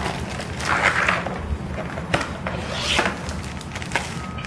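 Packaging and printed leaflets being handled during unboxing: two rustling swishes about a second in and near three seconds, and a few light knocks, over a steady low hum.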